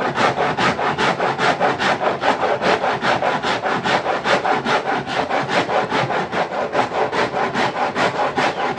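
Corn being rubbed back and forth on a hand grater to make homemade cuscuz: a steady rasping scrape at about five strokes a second.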